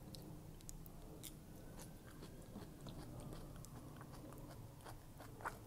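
Quiet, close-miked chewing of a mouthful of kimchi: soft, wet mouth clicks and smacks, with a sharper click about five and a half seconds in.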